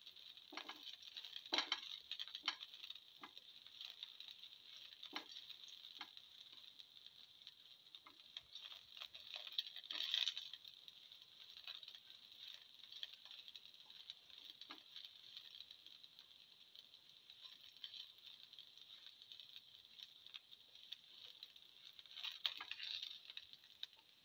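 Shallots, garlic and ginger sizzling faintly in oil in a frying pan, a steady light hiss, with scattered clicks and scrapes of a slotted spatula stirring them, louder about ten seconds in and again near the end.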